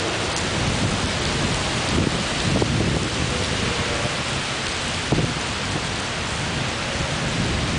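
Heavy rain pouring steadily in a thunderstorm, with a few short low knocks about two, two and a half and five seconds in.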